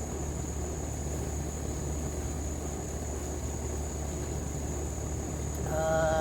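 Ninja Woodfire grill running in smoker mode, its fan giving a steady low hum, over a constant high insect trill. Near the end a short pitched tone sounds.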